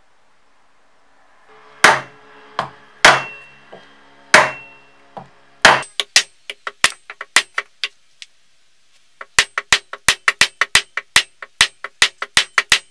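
Hammer blows driving a tapered steel ring into the end of a wooden hammer handle, set in the eye of a club hammer head. First come a few heavy, ringing blows with lighter ones between, then a run of quick taps, a short pause, and a steady series of light taps, about three or four a second.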